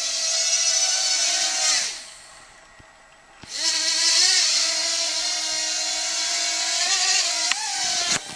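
Eachine H8 Mini micro quadcopter's motors and propellers whining in flight. The whine dies away just before two seconds in, then spins back up about a second and a half later and holds, wavering slightly in pitch as the throttle changes.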